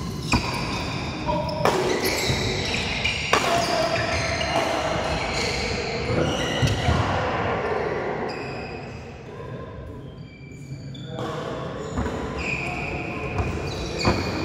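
Doubles badminton rally: sharp racket strikes on the shuttlecock every second or two, with short squeaks of court shoes on the floor between the hits.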